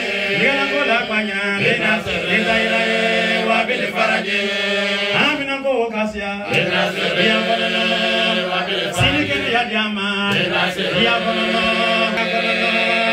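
Men chanting an Arabic Islamic supplication in long, drawn-out melodic phrases, the notes held for several seconds at a time.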